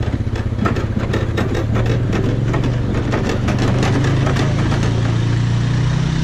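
A motor runs steadily with a low, even hum, like an engine idling. In the first few seconds, a quick run of light clicks or knocks sounds over it.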